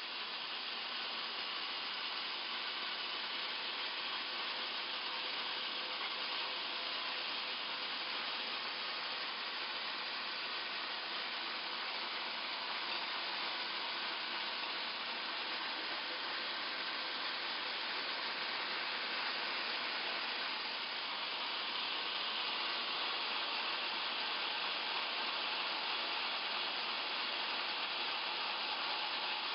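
Wood-milling machinery running with a steady, unbroken noise, like a saw cutting timber.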